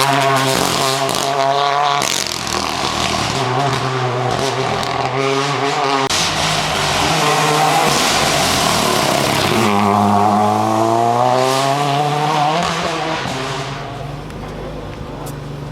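Ford Fiesta RS WRC rally car's turbocharged 1.6-litre four-cylinder engine at full throttle, revs climbing and dropping through repeated gear changes. It gives one long rising rev about ten seconds in, then fades away near the end.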